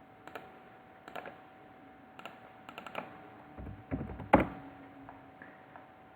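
Computer keyboard keys clicking in short clusters of a few presses, with a louder thump about four seconds in, over a faint steady hum.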